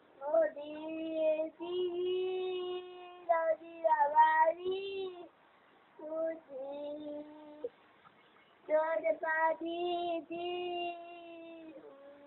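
A young girl singing to her puppy, unaccompanied: long held notes in three phrases, with short pauses between them.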